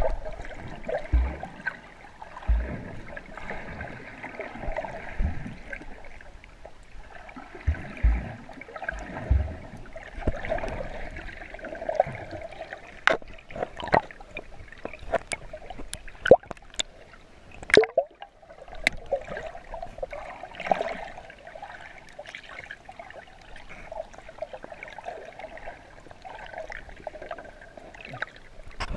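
Water sloshing and gurgling as heard by a camera held underwater near the surface while snorkeling over a reef, muffled, with many scattered sharp clicks and a few low thumps.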